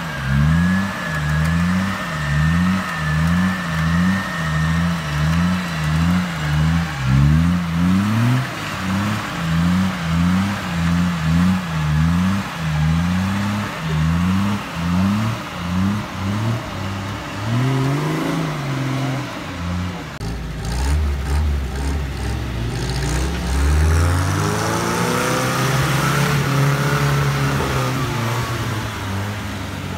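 Nissan Patrol engine stuck in mud, revved in quick repeated surges, about one a second, as the driver rocks the truck against the winch cable. After about 20 s a different engine, a UAZ's, takes over with longer rising revs as it pulls through mud.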